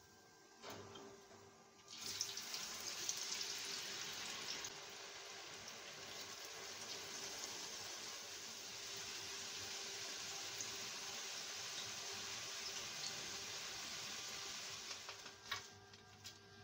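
Potato fries deep-frying in hot oil in a metal pan, a steady sizzling and bubbling. It starts suddenly about two seconds in and stops near the end, after a few clicks.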